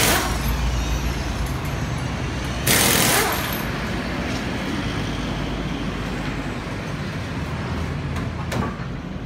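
Compressed air from a tire-shop air hose hissing in two short blasts, one at the start and a longer one about three seconds in, over a steady low machine hum.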